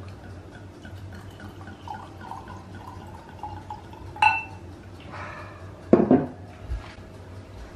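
Wine glugging from a bottle of Chablis into a wine glass. About four seconds in there is a sharp, ringing clink of glass. A couple of seconds later comes a loud knock as the bottle is set down on the stone worktop.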